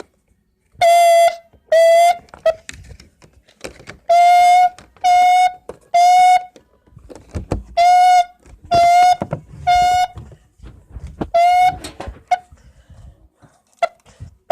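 System Sensor SpectrAlert fire alarm horn, set off from a manual push station, sounding a buzzy horn tone in the temporal-three evacuation pattern: blasts of about half a second in groups of three with a pause between groups. It cuts off after the first blast of the last group.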